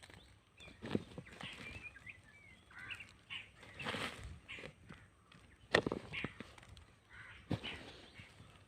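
Irregular rustling and scraping with a few sharp knocks, the loudest about six seconds in, and a few short bird chirps about two seconds in.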